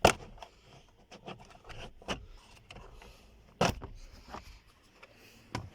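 Sharp clicks and knocks of hands working on a car's steering-column trim, the loudest at the very start and another about three and a half seconds in, with lighter taps and scrapes between.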